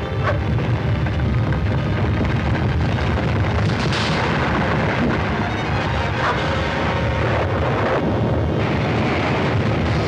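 Continuous deep rumble of a volcanic eruption sound effect, with background music underneath.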